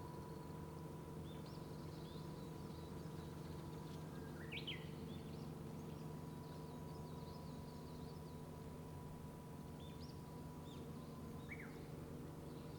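Various wild birds giving short, scattered chirps and calls, the clearest a little under five seconds in and again near the end, over a steady low hum of road traffic.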